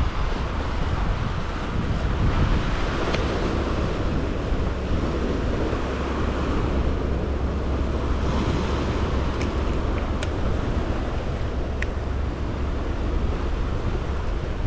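Wind buffeting the microphone over steady surf washing against rocks, with a few faint clicks.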